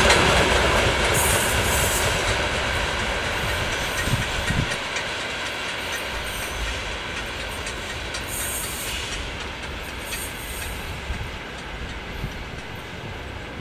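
Freight train of open wagons rolling away on the rails, wheels clattering over the track, the sound fading steadily as the end of the train recedes.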